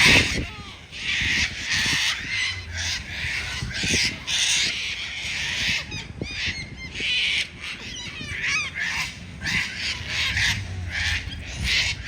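Cockatoos screeching: a run of harsh, raspy calls in quick succession, with some shorter chattering notes around the middle.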